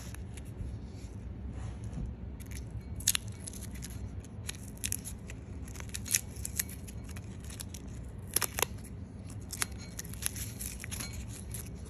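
Blue painter's masking tape being peeled off a freshly painted metal steering column, with irregular crackles and sharp snaps as it pulls away and crinkles in the hand.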